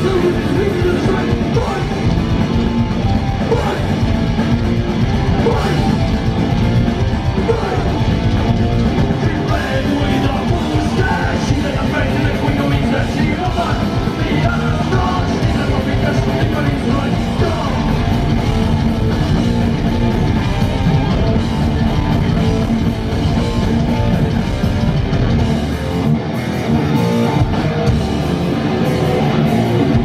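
Heavy metal band playing live at full volume: distorted electric guitars and drum kit with a singer's vocals, heard from the audience in a club.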